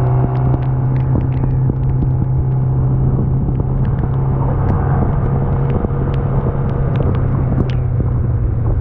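Motorcycle engine running at a steady speed, dropping slightly in pitch near the end, with scattered light ticks over a constant noise.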